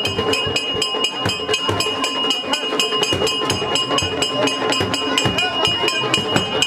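Procession music: small metal hand cymbals clashed in a fast, even beat of about six strikes a second, each strike ringing, with crowd voices around it.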